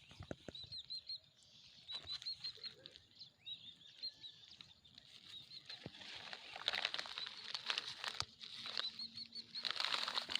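Small birds chirping in short, repeated high notes, over irregular rustling and crinkling from plastic litter being handled and bagged; the rustling gets busier in the second half.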